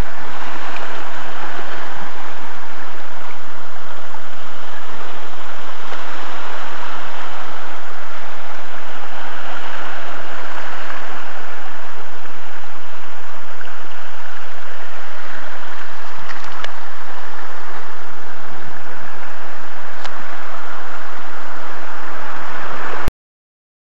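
Small waves washing and fizzing over a rock shelf at the sea's edge: a steady, loud rush of surf that cuts off suddenly near the end.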